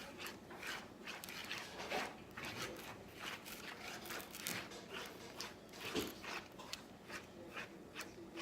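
Spoons stirring slime after activator has been added: irregular sticky clicks, squelches and scrapes against the container.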